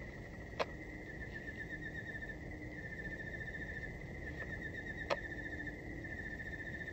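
Crickets chirring in a steady, high, rapidly pulsing trill, with two sharp clicks, one about half a second in and one about five seconds in.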